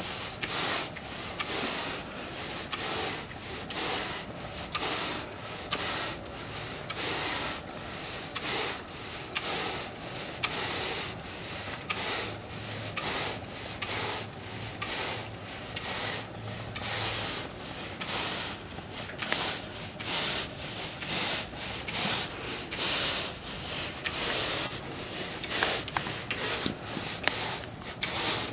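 Stiff-bristled push broom scrubbing across artificial turf in repeated strokes, a rough swishing scrape with each stroke as it brushes granular infill into the grass blades.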